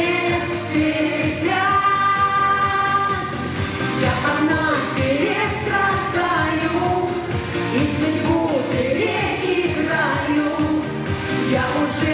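A song with a singer holding long notes over instrumental accompaniment.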